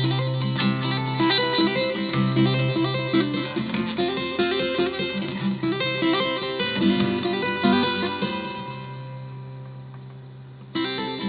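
Strinberg acoustic guitar played fingerstyle to sound like a harp: plucked notes ringing over a held bass note. Near the end the notes die away, then a new chord is struck sharply.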